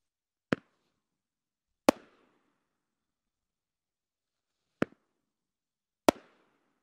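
Red Apple RAW Platinum Willows 1.2-inch firework cake firing two shots about three seconds apart. Each shot is a sharp launch pop, followed just over a second later by a louder bang with a short echo as the shell breaks.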